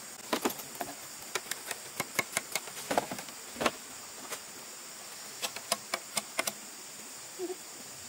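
Bamboo poles knocking and clacking: a string of sharp, irregular taps as a bamboo ladder is handled and set against a bamboo frame, busiest in the first few seconds and again after about five seconds. A steady high insect drone runs underneath.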